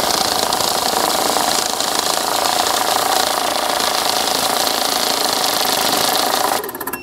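Electric banknote counting machine running, a loud steady whirring rattle of bills being fed through. It stops abruptly about six and a half seconds in, ending in a few quick clicks.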